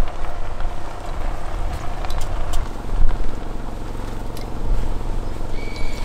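Land Rover Defender reversing slowly on gravel: a steady low engine hum with tyres crackling over the stones. A short high steady tone sounds near the end.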